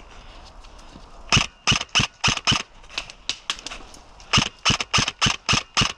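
Airsoft gun firing two quick strings of sharp semi-automatic shots, about three to four a second, starting about a second and a half in and again about four seconds in.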